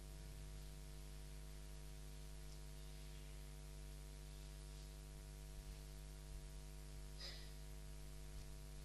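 Steady low mains hum with hiss from the audio chain, with no speech or singing; a faint short noise about seven seconds in.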